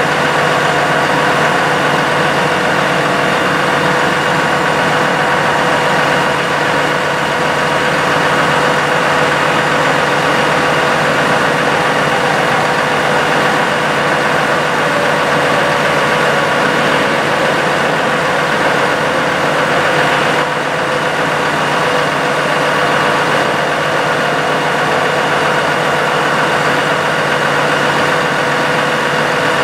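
Dodge 5500 work truck's engine idling steadily while its Versalift aerial boom is worked from the lower controls: a constant engine hum with a fixed steady whine over it.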